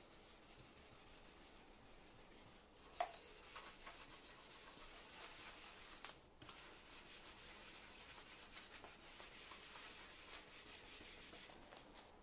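Faint rubbing of a paper towel being wiped over an oil-finished wooden frame, taking up the excess oil; the rubbing starts about three seconds in with a short sharp click and goes on steadily, with a brief pause near the middle.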